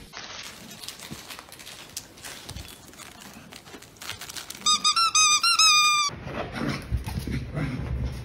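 A dog biting down on a squeaky plush toy, making a quick run of loud, high squeaks that lasts about a second and a half, starting around the middle.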